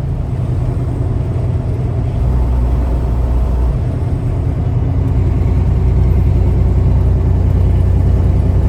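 Peterbilt semi truck's diesel engine droning steadily under road noise while driving, growing a little louder about two seconds in.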